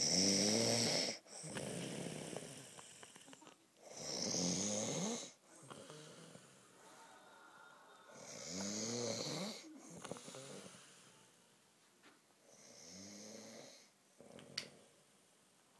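A person snoring in slow, regular cycles: four snores about four seconds apart, each followed by a softer breath, the snores growing quieter toward the end. A sharp click sounds near the end.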